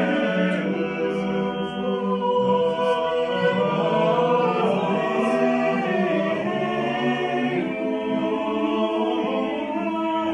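A small group of singers performing Renaissance polyphony a cappella, reading from an old choirbook. Several voice parts are held and move against one another without a break.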